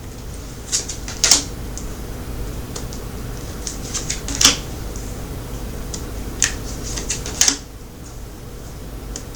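Tarot cards being handled and laid out on a table: a few light, irregular snaps and taps over a steady low hum.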